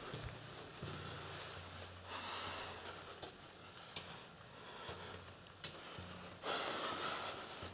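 A person breathing, with two breaths about four seconds apart, the second the louder, over small rustles and knocks from the camera being handled against clothing.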